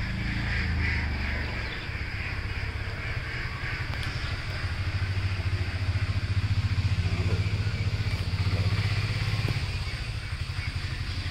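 An engine running with a low, fast, even throb that grows louder through the middle and then eases off.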